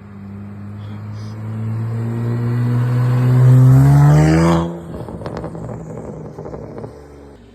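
BMW N54 twin-turbo straight-six exhaust rising steadily in pitch under throttle for about four and a half seconds, then cut off sharply as the throttle closes, followed by a few sharp pops as it falls back.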